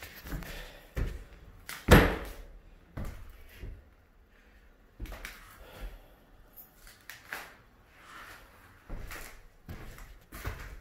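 Metal kitchen cabinet doors being opened and shut, with a sharp bang about two seconds in and several lighter knocks after it.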